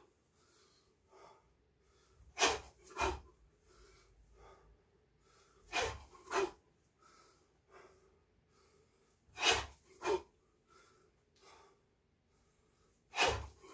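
Sharp, forceful exhalations, one with each strike as a man shadowboxes, coming in quick pairs about half a second apart. Four such pairs come at roughly three-and-a-half-second intervals.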